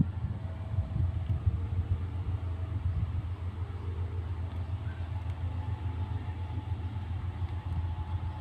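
Steady low rumble of a diesel-electric locomotive heard from a distance as the train comes out of the tunnel toward the track-side listener, with a faint steady whine above it from about halfway.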